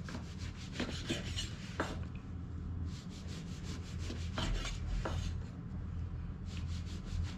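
Kitchen knife sawing back and forth through a stack of white sandwich bread slices to cut off the crusts: a rasping sawing sound in repeated strokes against the wooden cutting board.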